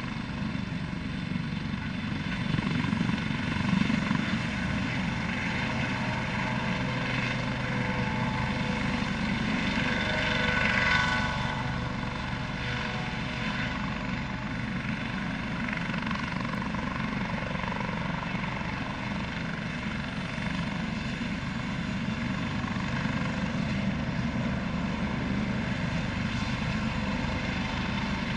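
Eurocopter AS365 N3 Dauphin twin-turboshaft helicopter lifting off and hovering: a steady rotor beat under turbine whine, the whine swelling about ten seconds in.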